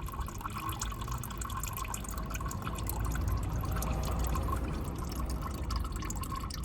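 Engine oil thinned with diesel flush draining out of an Audi B5's oil sump in a steady pouring stream, with dripping.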